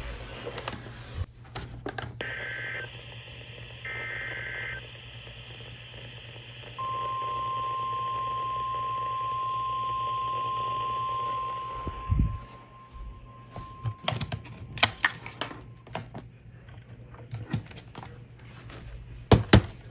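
Emergency Alert System signal from a NOAA Weather Radio broadcast. It opens with two short, buzzy SAME data bursts at about two seconds and four seconds in. The steady 1050 Hz weather-radio warning tone follows for about five seconds, marking the start of a new warning. Scattered clicks and crackles of radio static come after it.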